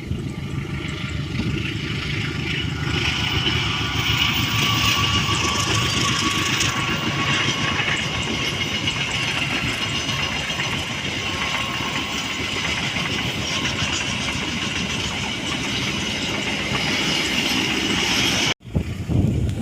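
Passenger train hauled by diesel locomotives running past: a steady rumble of wheels on rails with a high ringing tone, building over the first few seconds and holding, then cutting off suddenly near the end.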